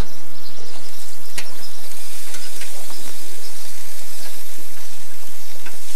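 Chicken pieces sizzling on a gas grill, a steady hiss, with a couple of brief clicks.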